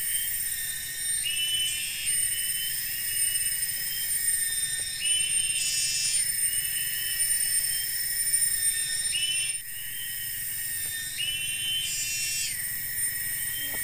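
Forest insect chorus: several high, steady shrill tones held throughout, with a louder chirping call that returns every few seconds.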